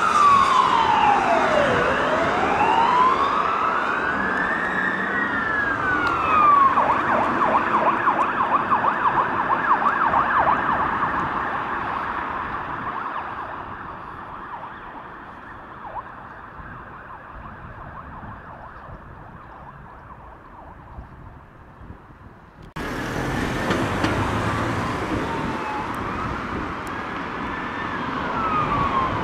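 Police car siren wailing in slow rising and falling sweeps, switching to a fast yelp about seven seconds in, then fading away as the car drives off. After a sudden cut, another siren wails over road traffic.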